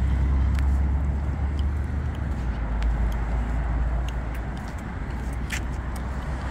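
Lexus IS 300 idling: a steady low hum that grows quieter as the walk moves from the tailpipes toward the front of the car, with a few faint ticks.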